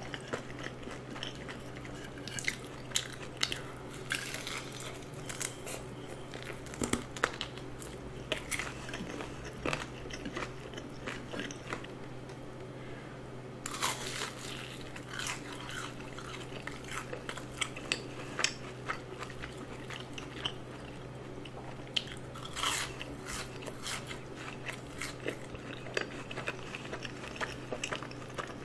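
Close-miked crunchy bites and chewing of seasoned fried chicken, with many sharp crisp crackles. About halfway through comes a louder, denser crunch as a fried cheese ball is bitten into.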